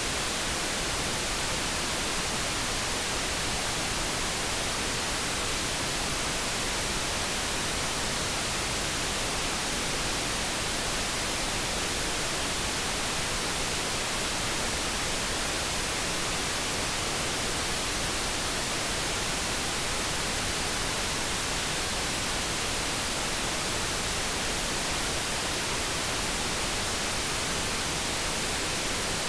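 Steady generated background noise, an even hiss that does not change.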